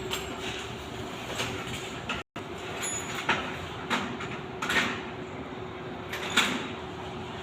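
A steady hum runs under several separate knocks and scraping clunks a second or so apart, the sounds of installation work on a packaged HVAC unit and its ductwork.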